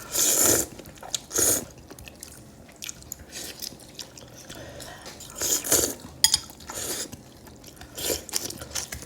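Close-up eating of noodle soup: several short bursts of slurping and chewing separated by quieter pauses, with a few small sharp clicks about six seconds in.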